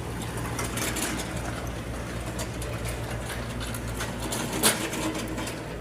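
A heavy vehicle's diesel engine idling steadily, with scattered light clicks and one sharp knock about four and a half seconds in.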